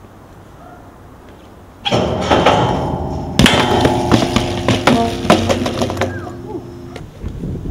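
BMX pegs grinding down a metal stair handrail, starting suddenly about two seconds in, the rail ringing with several steady tones. A hard landing about a second and a half later, after which the rail keeps ringing under scattered clicks and rattles.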